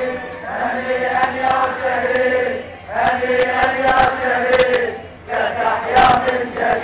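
A crowd of marching men chanting slogans in unison, in phrases about two to three seconds long with short breaks between them.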